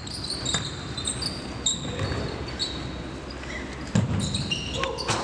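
Basketball being dribbled on a hardwood gym floor while sneakers squeak in short high chirps during play. A louder thump comes about four seconds in.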